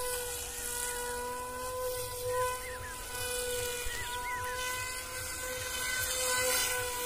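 Brushless electric motor and 6045 propeller of a foam delta-wing RC plane buzzing steadily in flight, an even whine that holds one pitch.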